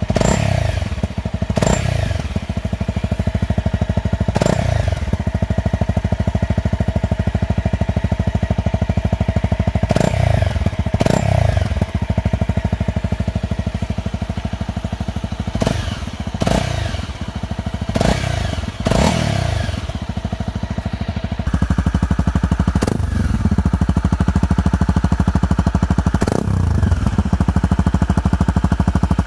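Honda CRF250M's single-cylinder engine idling, its throttle blipped about a dozen times, each rev falling quickly back to idle.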